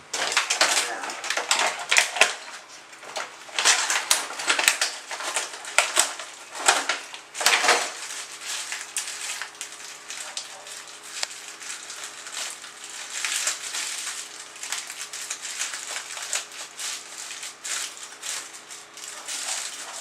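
Clattering and rustling as small door-lock hardware and its packaging are handled: dense irregular clicks for the first several seconds, then lighter scattered clicks.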